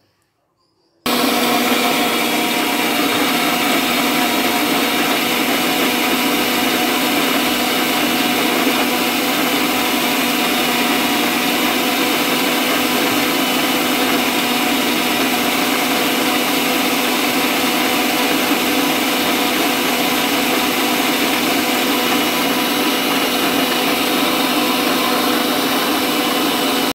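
Electric mixer grinder (mixie) motor switched on about a second in, then running steadily at full speed, blending dragon fruit pieces with milk, almonds and sugar in its steel jar. It stops suddenly at the very end.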